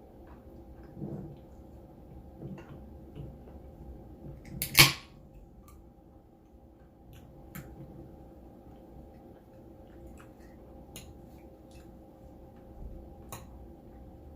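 Eating sounds: soft chewing and mouth noises with scattered small clicks, and one sharp, loud click or tap about five seconds in.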